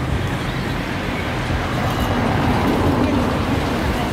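Steady street traffic noise with vehicle engines rumbling, and faint voices mixed in.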